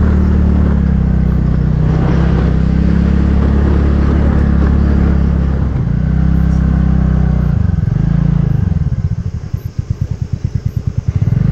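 Motorcycle engine running steadily under way with three people aboard. It then eases off as the bike slows and drops to a rapid, even pulsing idle, with a short rise in revs near the end.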